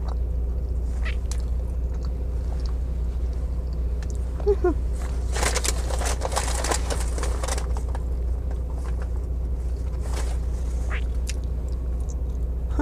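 Chewing and biting a burger close to a clip-on microphone, small wet clicks throughout, with a longer crunchy, rustling stretch about five seconds in as she takes a bite. A steady low hum of the car cabin runs underneath.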